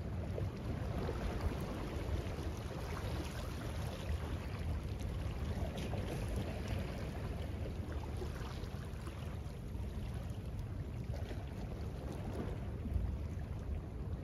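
Wind buffeting the microphone with a steady low rumble, over sea water washing and lapping against shoreline rocks.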